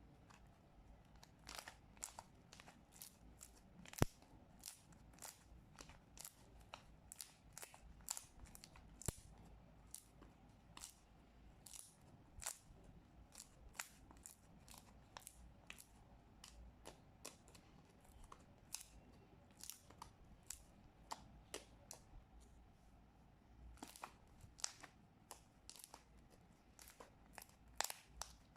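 Thick, glossy white-glue slime being worked by hand, giving an irregular run of small sharp clicks, about one or two a second, with a few louder ones.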